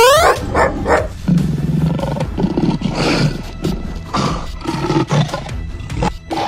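Lion roar sound effects, several in a row, over background music, with a short rising whistle-like glide at the very start.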